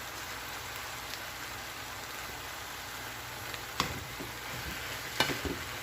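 Chicken breast and mixed vegetables sizzling steadily in a pan with teriyaki sauce. Two sharp clicks near the end, a utensil or the pan knocking.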